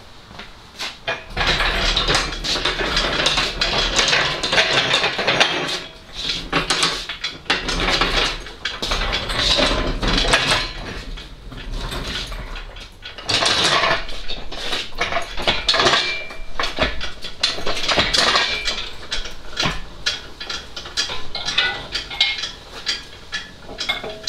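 Metal parts clattering and rattling in a dense, irregular run that starts about a second in, with brief lulls about six and thirteen seconds in.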